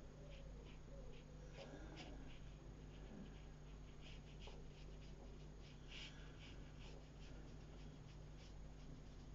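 Faint scratching of a watercolour brush on paper, many short strokes in quick, irregular succession, over a low steady hum.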